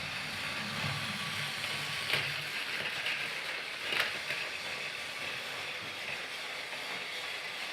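Thomas the Tank Engine train running with a steady rattling hiss, a low rumble that fades out in the first couple of seconds, and two sharp clicks about two and four seconds in.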